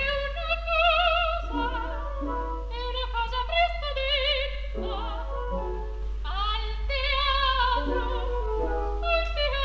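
Operatic singing by a high voice with wide vibrato, in short phrases with brief breaks, over a steady low hum.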